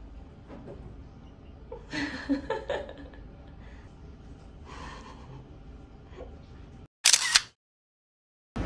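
A camera shutter click, two sharp snaps close together, about seven seconds in: the loudest sound here. Before it, faint water moving in a bathtub while a child plays.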